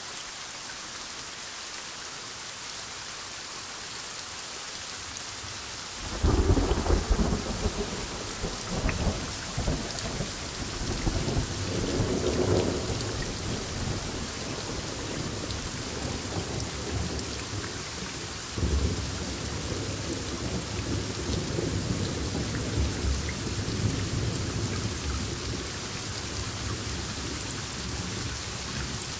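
Heavy thunderstorm: steady heavy rain hissing, then about six seconds in a thunderclap breaks suddenly into long rolling thunder, which swells again about two-thirds of the way through and keeps rumbling under the rain.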